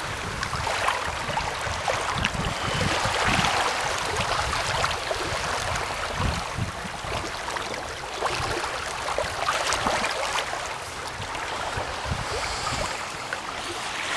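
Water rushing and splashing along the hull of a Wharram Tiki 21 catamaran sailing at about 5 knots, swelling and easing with the waves. Wind buffets the microphone with low rumbles.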